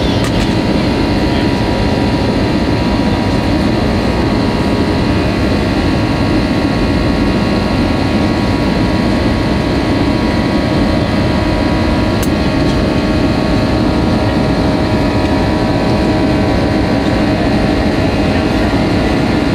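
Cabin noise of an easyJet Airbus A320-family airliner climbing after takeoff: a steady rumble and rush of air from the jet engines, with several steady whining tones on top.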